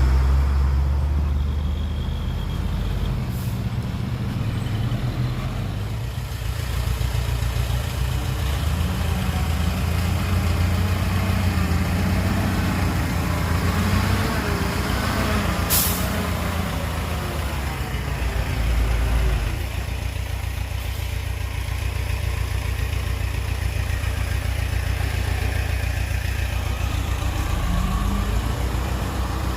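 Heavy diesel dump truck engine running under changing load, working harder in the middle and settling to a steadier note about twenty seconds in. A short sharp hiss, typical of an air brake, sounds once about sixteen seconds in.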